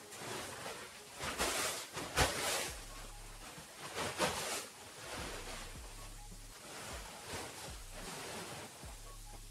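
Large plastic tarp rustling and crackling as it is dragged and hauled up over a woodpile, with the loudest swishes about a second and a half, two seconds and four seconds in.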